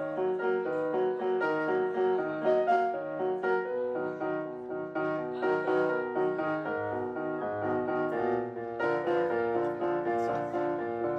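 Korg Pa-series arranger keyboard played with both hands in a piano sound: a continuous run of melody notes over chords, with the lower harmony changing about nine seconds in.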